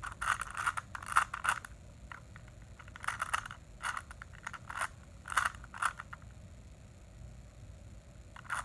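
A plastic Rubik's cube being turned by hand: its layers clack and scrape in quick runs of clicks. The turning stops for about two seconds near the end.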